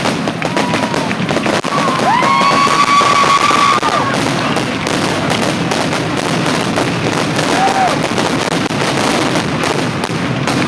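Aerial fireworks crackling and popping in a dense, rapid string of cracks. About two seconds in, a long high-pitched whistle-like tone rises and then holds for about two seconds.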